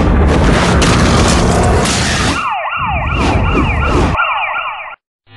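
Outro sound effects: a loud rumbling whoosh for about two seconds, then a quick run of falling, siren-like wails repeating about three times a second, which cut off abruptly near the end.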